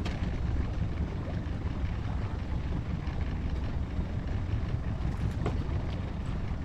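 Steady low rumble of wind buffeting the microphone and the boat moving slowly through the water while trolling, with a faint click about five seconds in.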